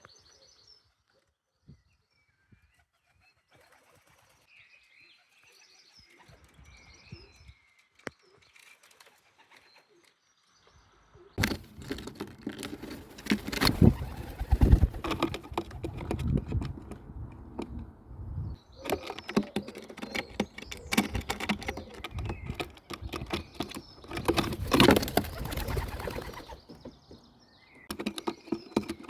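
Pigeons right at the camera's microphone: cooing, wing flaps and many knocks and scuffs against the camera, loud from about eleven seconds in. Before that, only faint bird chirps.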